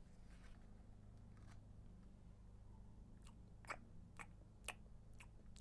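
Near silence: room tone with a steady low hum and a few faint, short clicks in the second half.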